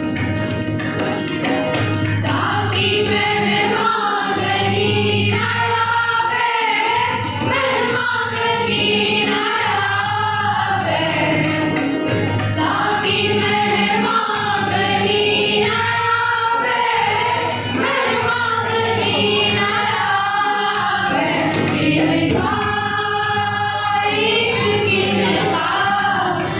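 A choir of schoolchildren singing a Shabad Kirtan, a Sikh devotional hymn, in unison over a steady low drone, accompanied by hand drums.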